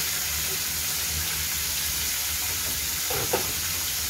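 Oil sizzling steadily in a wok as water spinach stems fry and sliced onions are tipped in. A short sharp sound a little past three seconds in.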